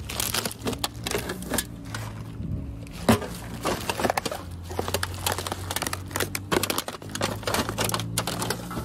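Bags of collected litter, plastic and paper, crinkling and rustling as they are handled, with many sharp crackles and clicks; a steady low hum runs underneath.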